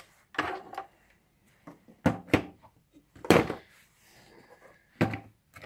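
Five or so separate knocks and clunks from the parts of a Goal Zero Yeti 150 portable power station being handled, the loudest a little over three seconds in.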